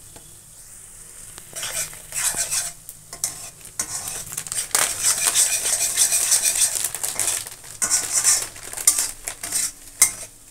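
Metal spatula stirring and scraping onions and spice powders around a kadai while they fry in sizzling oil, starting about a second and a half in. Sharp clinks of the spatula against the pan come more often toward the end.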